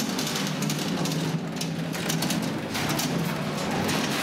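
Building-site noise: a steady low hum with irregular rattling and knocking, as workers push steel wheelbarrows across a concrete floor.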